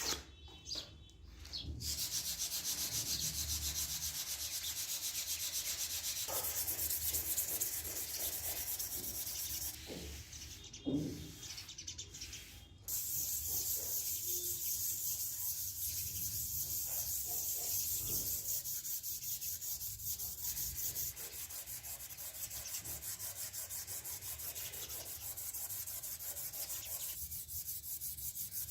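Sanding on the old folding knife, a steady rasping hiss that stops briefly with a few knocks about ten seconds in, then carries on.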